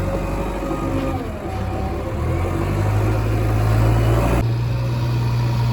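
Diesel engine of a JCB backhoe loader running under load. It revs up and grows louder about two seconds in, then holds steady.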